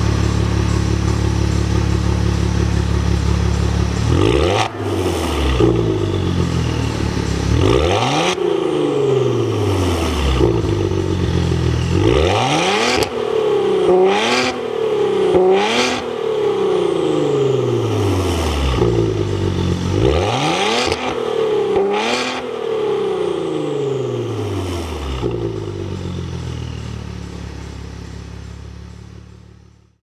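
Maserati Ghibli's 3.0-litre twin-turbo V6 through a Fi Exhaust valvetronic catback with the exhaust valves open: idling steadily, then a series of about eight quick throttle revs that rise and fall back to idle. Fades out near the end.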